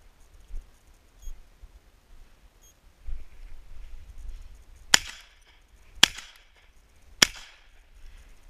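Three shotgun shots, evenly spaced about a second apart, in the second half.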